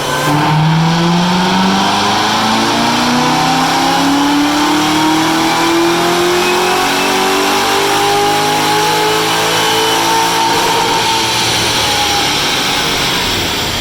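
Supercharged V8 car making a wide-open-throttle pull on a chassis dyno: the engine revs climb steadily for about ten seconds, then it lifts off and the revs fall away near the end. This is a baseline power run on the stock engine.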